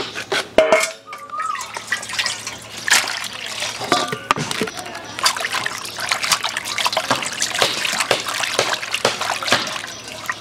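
Hands rubbing and turning cut pieces of baim eel in a steel bowl of water, with wet splashing and sloshing and water trickling and dripping, beginning about two seconds in.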